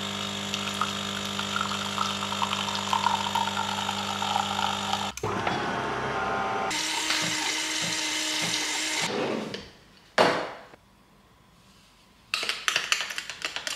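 De'Longhi Eletta Explore bean-to-cup coffee machine running a steady pump hum as espresso pours into a glass mug, changing about five seconds in to a rougher, hissier running sound that fades out around nine seconds. A sharp knock about ten seconds in is the loudest sound, and near the end a metal spoon clinks rapidly against the glass as the coffee is stirred.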